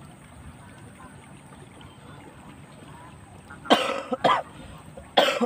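A person coughing: three hard coughs close together in the last two seconds.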